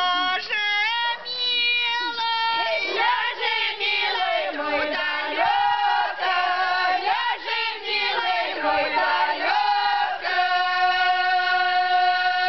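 Group of village women singing together the round-dance song of the 'leading the arrow' (vozhdenie streli) spring rite, Polesian folk singing in long drawn-out phrases. A single note is held steadily from about ten seconds in to the end.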